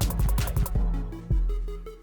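Background electronic music with a deep bass and a steady beat; the fast high ticks drop out under a second in.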